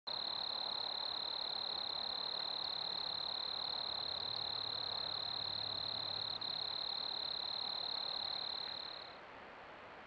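A calling animal's steady high-pitched trill, held without a break and fading out about nine seconds in.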